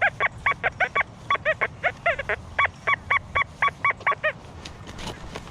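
An animal calling in a quick run of short, pitched notes, about three or four a second, stopping a little over four seconds in.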